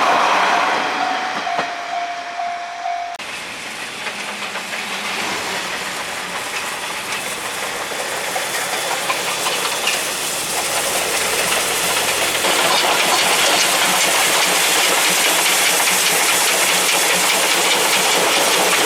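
The C58 steam locomotive of the SL Ginga train running, with steam hiss and the clatter of wheels on the rails. A steady tone sounds for the first three seconds and cuts off abruptly, and the train noise grows louder in the second half.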